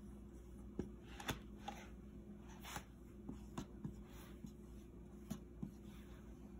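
Faint strokes of a dry-erase marker drawn across a whiteboard: a string of short, quick scratches a few to the second, over a low steady hum.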